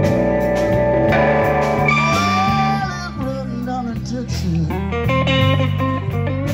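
Live blues band playing a slow blues: an electric guitar lead with sustained and bent notes over bass guitar and drums.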